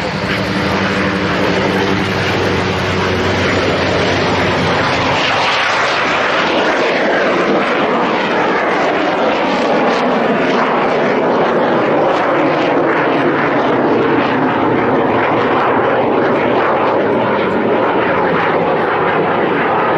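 Jet aircraft engine noise, loud and sustained: a steady low hum of engine tones in the first few seconds gives way to a broad rushing sound with sweeping rises and falls in pitch, as of a jet passing close by.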